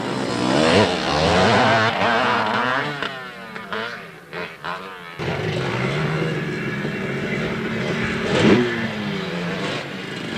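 Motocross dirt bike engines revving up and down as the bikes ride the track, dropping away for a moment about four seconds in, then running steadier with one quick rev near the end.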